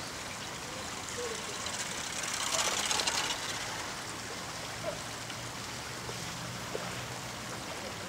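Running water makes a steady rushing, which swells louder for about a second a little over two seconds in.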